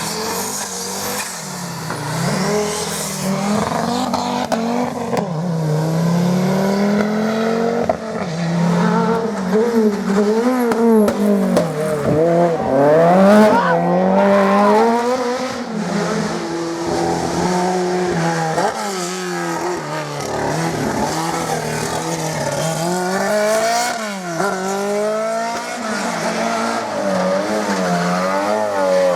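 Rally car engines revving hard at full throttle, the pitch climbing and dropping again and again through gear changes and lifts.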